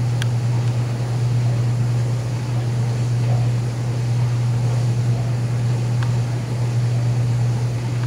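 A steady low hum over a faint hiss of water splashing in a bird bath fountain, with a couple of faint clicks.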